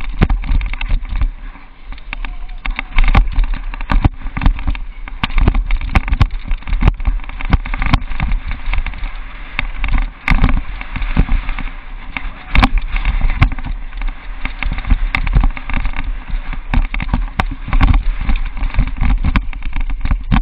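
Downhill mountain bike ridden fast over a rough dirt trail: steady wind rush and rumble with constant irregular rattling and knocking from the bike over bumps.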